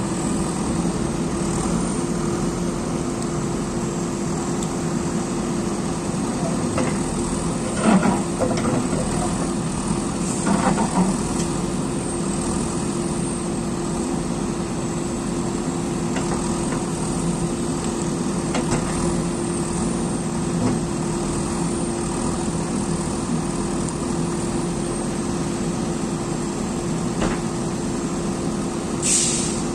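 JCB excavator's diesel engine running steadily at a constant pitch, with a few short clunks from the machine's work about eight and eleven seconds in and again near the end.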